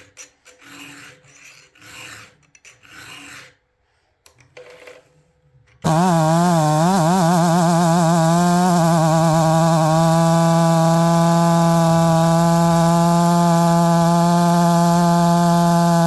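Rhythmic rasping strokes of a file sharpening a chainsaw chain for a few seconds, then a pause. About six seconds in, a loud steady hum starts suddenly; its pitch wavers at first, then holds level.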